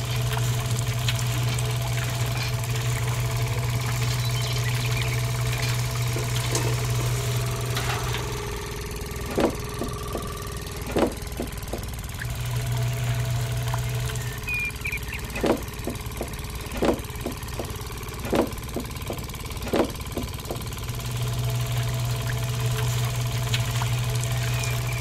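Small motor driving a miniature sugarcane juicer's rollers through a belt, running with a steady low hum. It stops about eight seconds in, runs again briefly around twelve seconds, and starts up again near twenty-one seconds. While it is stopped there are sharp ticks about every second and a half.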